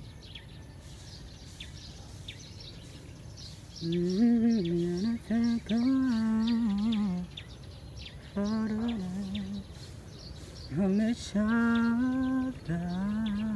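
A person humming a tune in held notes that step up and down, in short phrases with pauses, starting about four seconds in, as if practising their voice. Faint high chirps sound in the background throughout.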